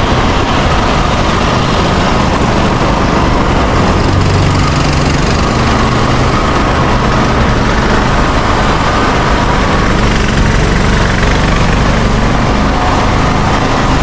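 Standby generator engine running steadily, a loud unbroken drone with a low hum. It runs because a scheduled power cut (load-shedding) has left the street without mains electricity.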